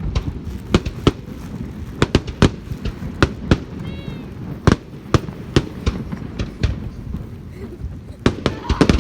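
Fireworks going off: an irregular string of sharp bangs, about two a second.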